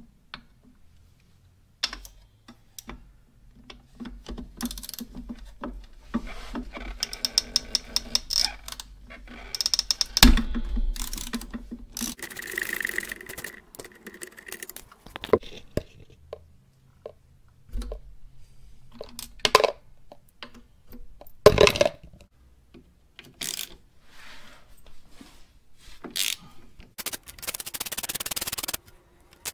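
Hand socket ratchet on an extension clicking in quick runs while loosening the banjo bolt on a motorcycle's rear brake master cylinder, with a few sharp metal knocks of tools against the frame.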